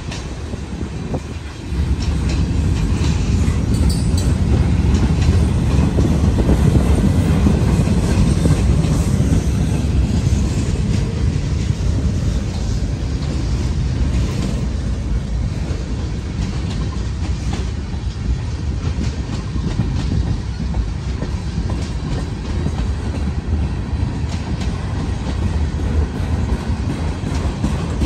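Freight cars of a mixed manifest train rolling past: a steady rumble of steel wheels on rail with scattered clicks, getting louder about two seconds in.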